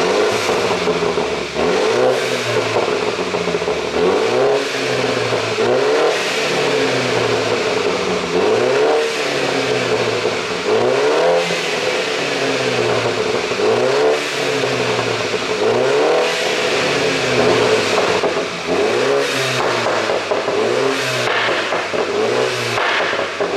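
BMW G30 530i's turbocharged two-litre four-cylinder revved in short blips about ten times, each rev rising and dropping back, with exhaust pops and crackles on the overrun from a pop-and-bang tune.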